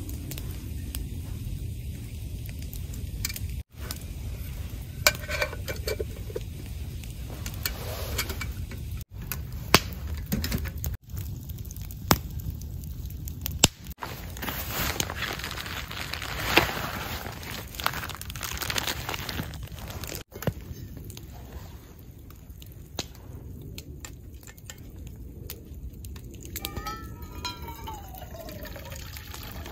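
Camp cookware and utensils being handled: scattered metal clinks and knocks in several short clips, over a low steady background rumble.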